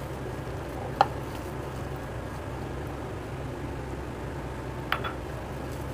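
Steady low background hum, like a running fan, with two short sharp clicks: one about a second in and one near the end.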